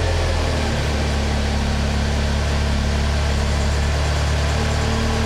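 Jeep Wrangler engine idling, heard from inside the cabin: a steady low hum.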